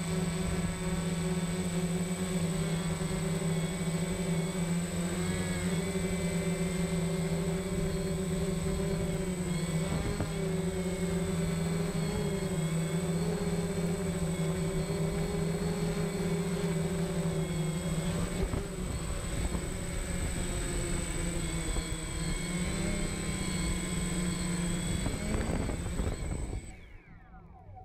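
DJI Phantom quadcopter's four motors and propellers running close to the microphone: a steady, slightly wavering hum with a thin high whine as it hovers low and descends onto grass. The sound cuts off suddenly near the end as the motors stop.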